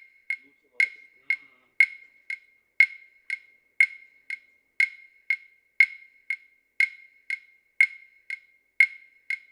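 Even, wood-block-like ticking, about two ticks a second, alternating a louder tick with a softer one and keeping a strict beat throughout.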